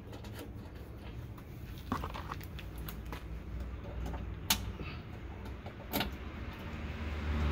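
Handling noise of 10 mm bolts being threaded by hand to mount a rear wiper motor on a liftgate's inner panel, with three sharp small metallic clicks about two, four and a half and six seconds in, over a low steady hum.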